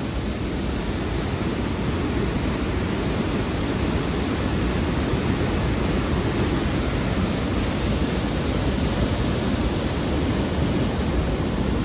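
Steady rushing roar of whitewater cascading down a narrow rocky gorge.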